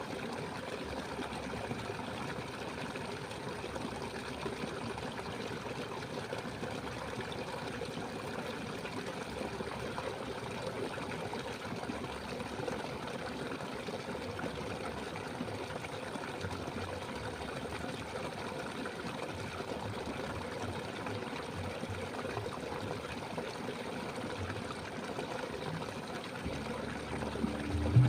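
Steady running water of a stream, flowing continuously.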